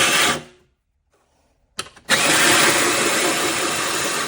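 Hawaiian Shaved Ice S777 electric shaved-ice machine running, its motor turning the frozen ice disc against the blade and shaving it. A short burst of under a second at the start, then after a pause a steady run of about two seconds that stops near the end.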